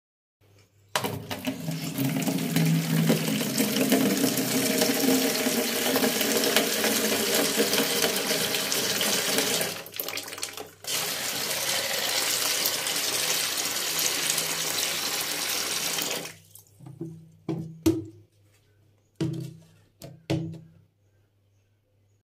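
Tap water running into a plastic bowl in a stainless-steel kitchen sink, filling it. The flow starts about a second in, breaks briefly near the middle, and stops after about sixteen seconds, followed by a few short knocks.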